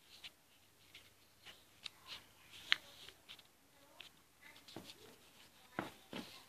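Faint, scattered crackles and rustles of a sheet of paper being handled and creased as it is folded by hand.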